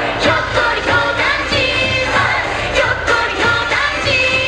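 Japanese Bon Odori dance song: a singing voice over music with a steady beat.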